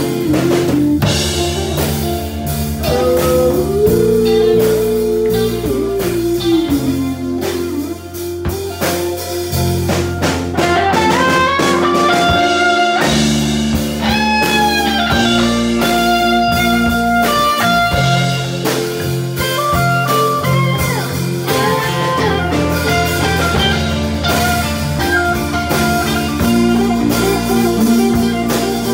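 A band playing live: electric bass, keyboard and drum kit, with a lead melody that slides and bends in pitch above them.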